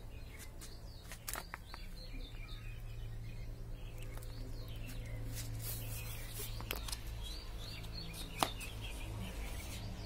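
Sparrows chirping in short calls, with a few sharp clicks, the loudest near the end, over a low steady hum.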